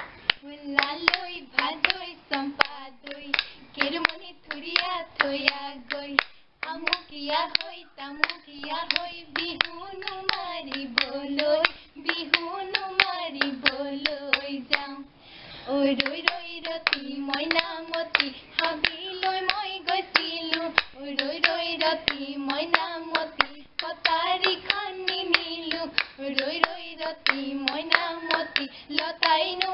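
Two women singing an Assamese bihu naam together without instruments, one sung melody over a fast, steady beat of hand claps and the clack of a toka, a split-bamboo clapper.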